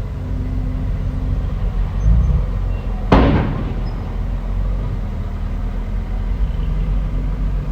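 Bulldozer's diesel engine running steadily with a low rumble, with one loud, sharp bang about three seconds in.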